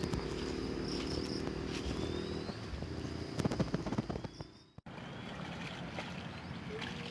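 Rural outdoor ambience: a steady engine hum that stops about two and a half seconds in, under a steady high insect drone with a few short chirps. A few clicks come around three and a half seconds in, then a brief dropout.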